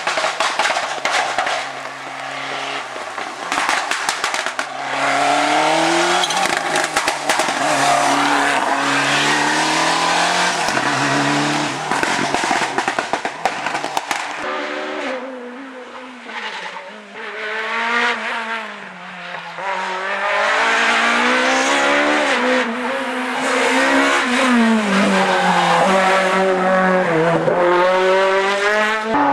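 Rally cars driven hard one after another through the bends, their engines revving up through the gears with a sharp drop in pitch at each shift. The engine sound fades briefly about midway, then the next car comes through revving hard.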